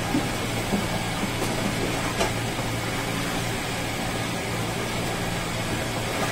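Steady machine hum with a rushing, even noise at an unchanging level, and a couple of faint clicks over it.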